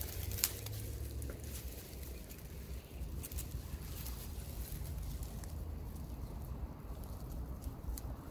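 Dry reed and grass stalks rustling and crackling as hands work down among them tying a fishing line, with a few scattered sharp clicks, over a low steady rumble.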